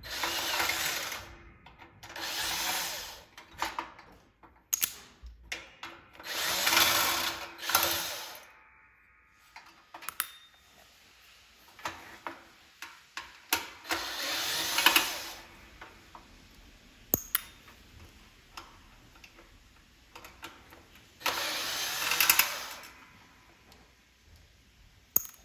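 A power drill runs in short bursts, about six times, each lasting a second or so, with clicks and knocks of parts being handled between them.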